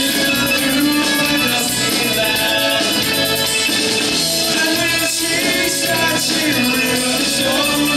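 Live rock band playing loud and steady, a male singer singing into a microphone over electric guitars, bass, keyboards and drums, heard through the PA from the audience.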